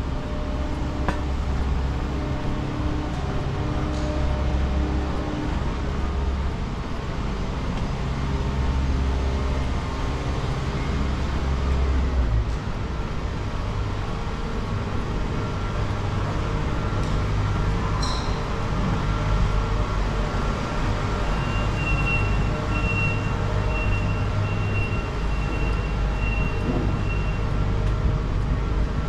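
Steady vehicle noise with a low engine hum and no speech. A high pulsing tone sounds for several seconds near the end.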